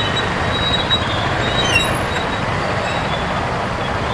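Steady motorcycle riding noise in city traffic: the engine running under an even rush of road and wind noise, with a brief high squeak a little under two seconds in.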